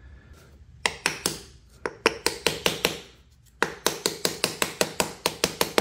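Small hammer tapping the metal end cap of a John Deere X340 starter motor down onto its housing to seat it during reassembly. A quick run of light, sharp taps, about four to five a second, with a short pause near the middle.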